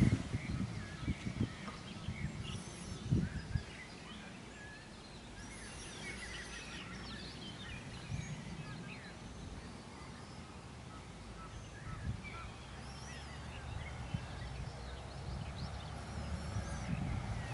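Many small birds chirping and singing at once over a steady low rumble, with a few low thumps in the first few seconds.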